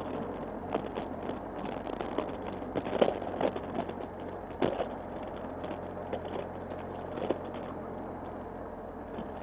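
Triumph Explorer XC's three-cylinder engine running at low speed under a steady low note, while the tyres crunch and knock over rocks on a rough dirt track, with irregular clicks and thumps throughout. The sharpest knocks come about 3 and 4.5 seconds in.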